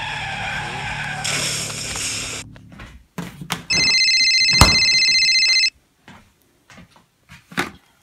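Car running with a high screech for about the first two and a half seconds, then a telephone ringing with a steady electronic ring for about two seconds, broken by a sharp click, followed by a few faint clicks.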